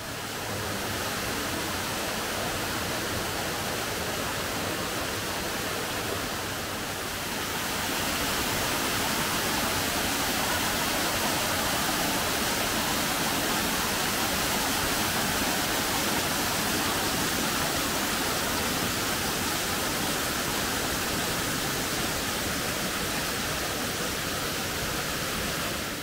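Steady rush of flowing water, an even roar that swells slightly about seven seconds in.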